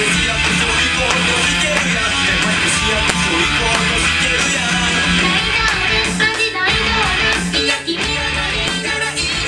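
Live rock music led by electric guitar, played loud with a steady beat.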